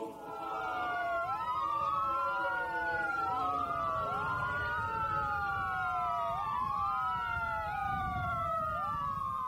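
Two or more vehicle sirens wailing together out of step, each rising quickly and falling slowly in a repeating cycle, over a steady low rumble.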